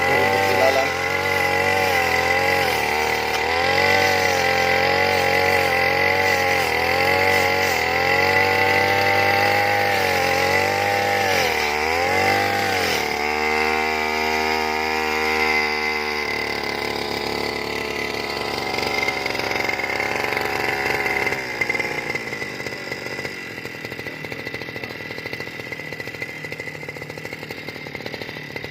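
Grass-cutting machine's small petrol engine running hard, its pitch rising and falling repeatedly. About halfway through, the pitch dips sharply, then holds steady for a few seconds. In the last third, the sound turns quieter and rougher.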